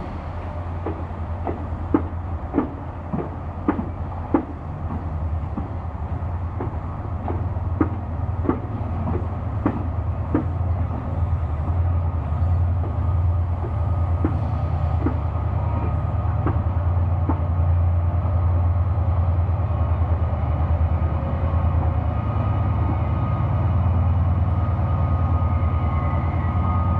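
Class 68 diesel locomotive propelling a rake of passenger coaches slowly into the station. The wheels click over rail joints, about two clicks a second at first and fewer as the train slows. Under the clicks runs a steady low drone from the diesel, which grows louder in the second half as the locomotive draws level.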